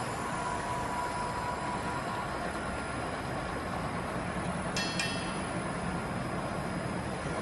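Gantry CNC drilling-milling machine's spindle cutting a metal ring workpiece: a steady machining noise, with one short metallic clink about five seconds in.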